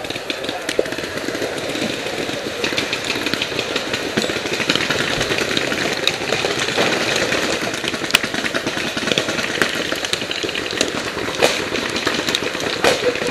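Paintball markers firing in rapid strings, a dense run of pops with some louder single cracks, over the steady hiss of an orange smoke grenade burning close by.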